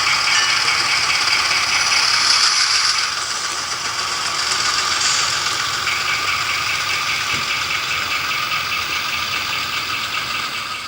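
Model diesel locomotives running on the layout's track, with a steady mechanical rattle and gear whir that eases a little about three seconds in.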